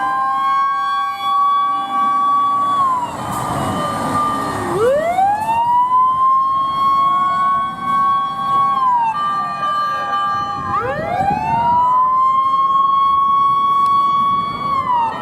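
Japanese fire engines' 50 W electronic sirens wailing: each wail rises, holds a steady high pitch for a few seconds, then falls, repeating about every six seconds. A rapid fire-alarm bell (high-speed 警鐘) from the command car rings along with them.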